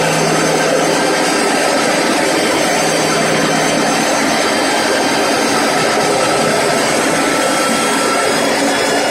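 Electric core cutting machine running steadily as it drills into concrete: a loud, continuous motor whine and grind, with a low hum that fades out about four seconds in.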